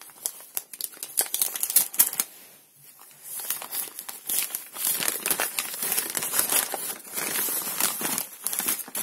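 Crumpled packing paper and wrapping crinkling and rustling under the hands as a potted orchid is unwrapped and handled, with scattered small clicks. It grows busier and louder from about three and a half seconds in.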